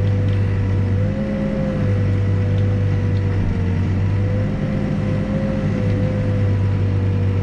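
Backhoe's diesel engine running steadily while digging, with a high whine over it that wavers slightly in pitch; the engine note eases briefly twice as the controls are worked.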